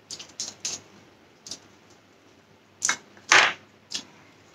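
Eating noises at a table: a string of short sharp clicks and taps from cutlery and takeaway containers, with a louder, longer scrape or crunch about three and a half seconds in.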